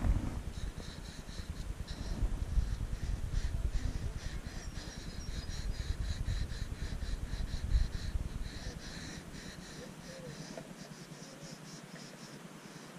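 Low wind rumble on the microphone that eases off after about nine seconds, over quick, repeated scratching of a Conté crayon stroked across a sketchpad.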